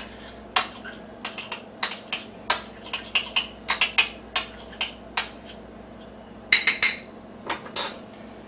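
A utensil clinking and tapping against a bowl and plate while food is served onto a dish: irregular short, sharp clicks, with a quick cluster of them near the end.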